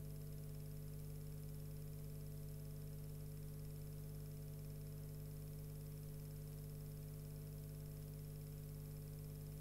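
Steady low electrical hum with a faint even hiss, unchanging throughout: a noise floor with no sound from the fires on screen, typical of an old silent film transfer.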